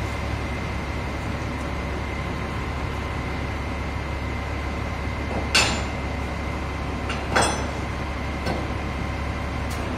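Container-handling machine's engine running steadily with a low drone and a thin steady whine. Two sharp metallic clanks about halfway through and a second and a half later, then a few lighter knocks, as steel sling hooks are handled against the lifting beam and the top of the steel container.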